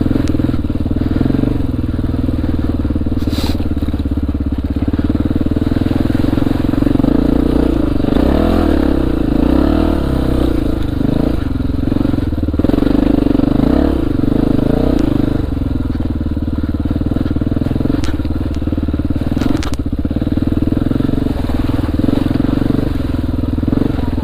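2002 Honda XR400R's four-stroke single-cylinder engine running as the dirt bike is ridden, the revs rising and falling repeatedly through the middle stretch.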